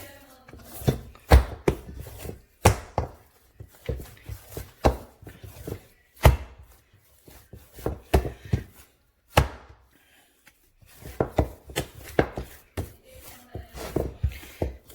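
Soft bhature dough being kneaded by hand, pressed and slapped down against the bowl or board in a run of irregular thumps, one to three a second, with a short pause about ten seconds in.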